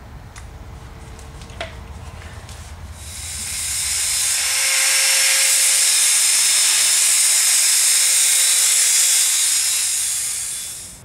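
Angle grinder grinding a steel frame tube, throwing sparks: a loud, steady, harsh hiss that swells in about three seconds in and cuts off at the end.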